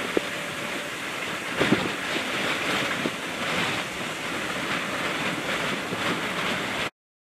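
Strong, gusty wind rushing over the microphone in the inflow close to a tornado, with a few brief knocks about two seconds in. The sound cuts off suddenly near the end.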